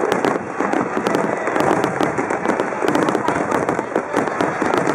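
Aerial fireworks going off in a dense, continuous run of sharp pops and crackles.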